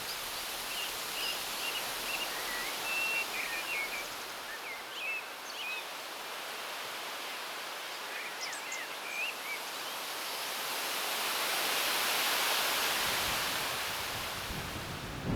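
Small birds chirping and singing over a steady hiss of outdoor ambience, with a broad rush of noise swelling and fading about ten to fourteen seconds in.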